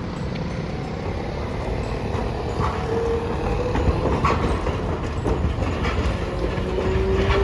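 Hiroshima Electric Railway streetcar approaching on street track, its rumble growing louder, with a brief whine about three seconds in and again near the end, and a few clicks.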